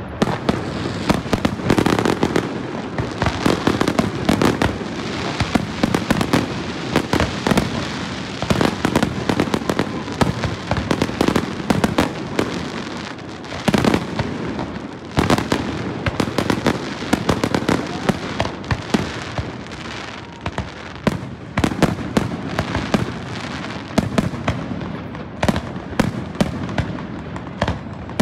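Aerial fireworks display: shells bursting in a dense, unbroken barrage of bangs, several a second, overlapping one another.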